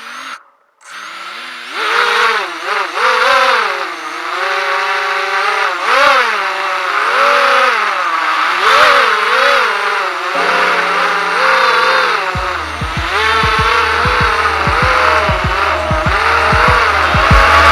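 Racing quadcopter's brushless motors on a 4S battery whining, the pitch rising and falling with throttle. About ten seconds in, music with a steady beat comes in under the motor sound.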